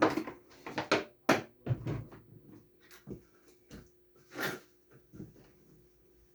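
Hard objects being handled and set down: a quick run of sharp knocks and clicks at the start, then scattered knocks and a brief scrape about four and a half seconds in, over a faint steady hum.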